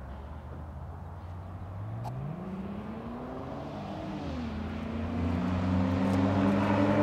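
A vehicle engine revving up, dropping in pitch as it changes gear about four seconds in, then running steadily and growing louder.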